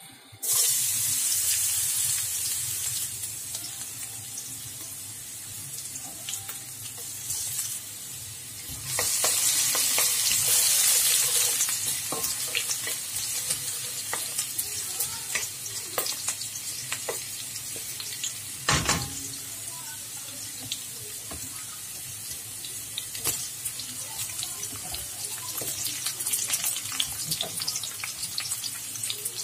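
Minced garlic sizzling in hot oil in a wok, starting suddenly about half a second in and growing louder for a while about nine seconds in. A wooden spatula scrapes and taps the wok throughout, with one louder knock partway through.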